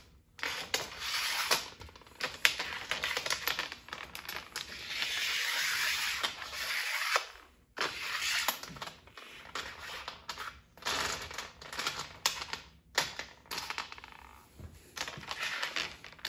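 Mounting bolts sliding and scraping along the aluminium channel of a Roam awning's rail, in long scrapes broken by sharp metallic clicks as they are pushed into position.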